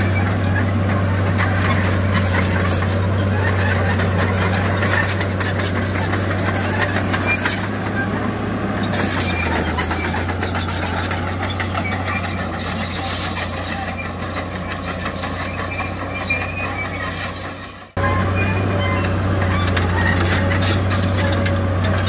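Heavy diesel earthmoving machinery running steadily with a low engine drone and mechanical noise over it. The sound fades and drops out about eighteen seconds in, then comes back abruptly.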